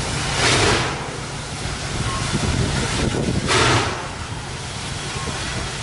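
Norfolk & Western J-class steam locomotive moving slowly, with two heavy exhaust chuffs about three seconds apart over a steady low rumble of the engine and wheels.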